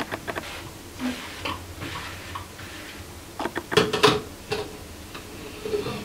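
Stainless steel sections of a VES SF-1800 electric geyser coffee maker clinking and scraping as the upper chamber is set on the base and screwed together. The loudest part is a cluster of metallic knocks with a short ring about three and a half to four seconds in.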